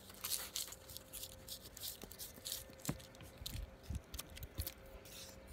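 Rustling and crinkling of something being handled close to the microphone, a run of short irregular crackles, with a faint steady hum underneath.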